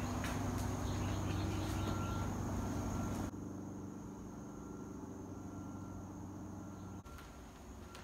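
Quiet ambience of a steady, thin, high-pitched insect drone over a low steady hum. The level drops sharply about three seconds in and again near the end.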